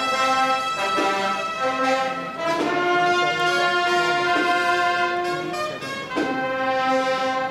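Agrupación musical, a Seville Holy Week brass band of cornets, trumpets and trombones, playing a processional march in long held chords.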